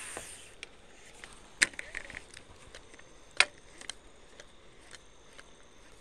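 Sharp clicks and taps from handling a fishing rod, reel and lure, two loud clicks standing out about one and a half and three and a half seconds in, with lighter ticks between.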